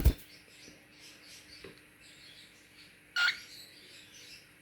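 A pet parrot gives a single short, sharp chirp about three seconds in, over a quiet room. There is a brief bump at the very start.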